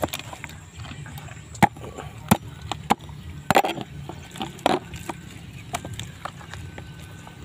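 Scattered sharp clicks and knocks, a few seconds apart, from a knife and hand working raw chicken innards in a plastic basin.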